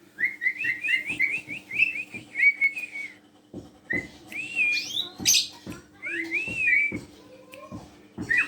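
Asian pied starling (jalak suren) calling: a quick run of chattering whistled notes for about three seconds, then after a pause louder whistles, a harsh squawk-like burst and rising-and-falling whistled glides. Light clicks and knocks sound throughout.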